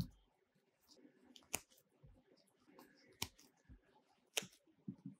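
Soft bread dough being pulled off a rolled log by hand and the pieces set down on a plastic mat: four sharp taps about a second and a half apart, with faint handling noise between.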